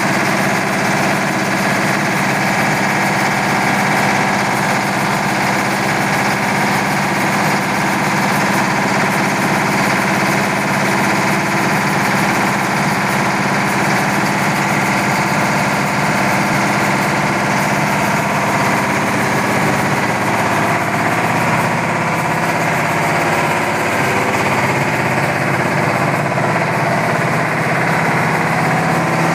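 Yanmar TF300 single-cylinder diesel engine running steadily under load, driving a YMM 20 rice milling machine and its grain elevator, the engine's beat and the mill's running blended into one loud, constant machine noise.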